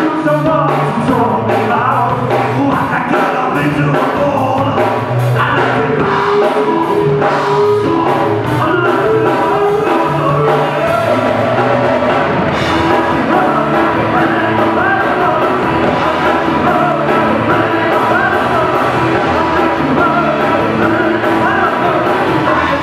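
Live rock band playing: electric guitars, bass, drum kit and keyboard, with a lead vocal sung into the microphone over a steady drum beat.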